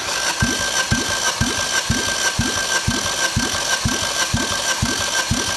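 Opel 1.6 Z16XER four-cylinder petrol engine being cranked over on its starter for a compression test, a steady whine with an even low pulse about twice a second as the cylinders come up on compression. The gauge on the third cylinder builds to 9 kg/cm², the same as the other cylinders: even compression.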